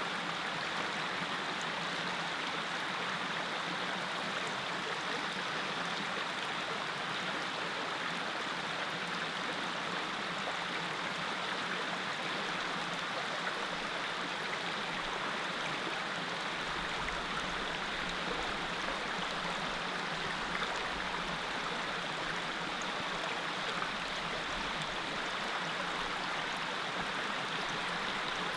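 Small mountain creek flowing: a steady, even rush of running water.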